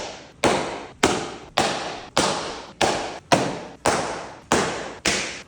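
A baseball smacking into the pocket of a freshly relaced Wilson catcher's mitt over and over, a sharp leather pop roughly every half second, each with a short echo tail.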